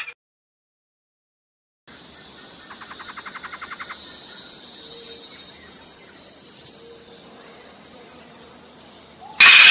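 Forest insect chorus: after a couple of seconds of silence, a steady high-pitched hiss sets in, with a rapid buzzing trill for about a second early on. A sudden loud sound cuts in just before the end.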